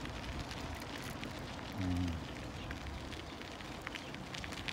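Footsteps crunching on a fine gravel path at a steady walking pace, heard as a continuous crackle. A brief low voice sound comes about two seconds in.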